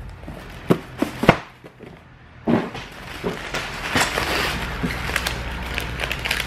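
Crumpled brown packing paper and plastic wrap rustling and crinkling as they are pulled out of a cardboard shipping box, after a few sharp clicks and knocks in the first second or so.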